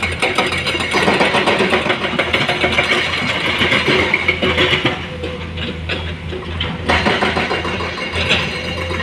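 Diesel engine of a Komatsu PC210 hydraulic excavator running steadily under load while it digs, with a few short clunks and scrapes as the bucket bites into soil and rock.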